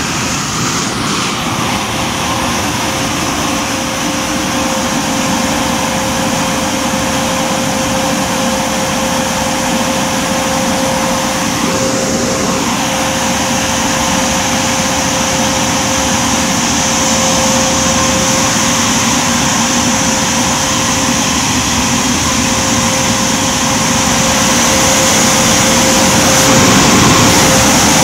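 Touchless car wash blower dryers running: a steady rush of air with a constant hum, growing slightly louder near the end.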